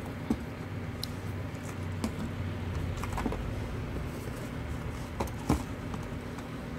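Small cardboard toy boxes being handled and set down, giving a few light taps and knocks, the loudest about five and a half seconds in, over a steady low background hum.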